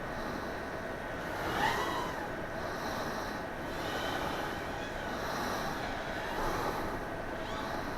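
FPV quadcopter's brushless motors whining over steady wind rush, the pitch sweeping up and back down a few times as the throttle changes.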